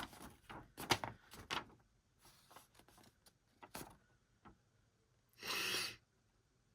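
Album packaging and paper leaflets being handled: a few light clicks and taps, then a short sliding rustle of about half a second near the end.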